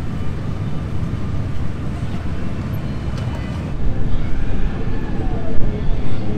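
Steady low rumble of motorcycle engines idling, with voices in the background; the sound shifts slightly a little under four seconds in.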